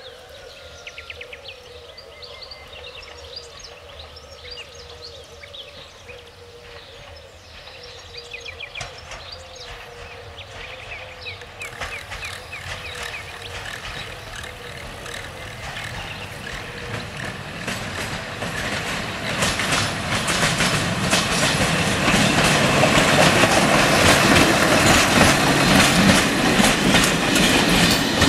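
Orange CFR class 82 diesel-hydraulic locomotive hauling a passenger train as it approaches. At first its engine drones steadily under birdsong. Then the wheels clatter over the rail joints, growing louder until the train rolls past close by over the last third.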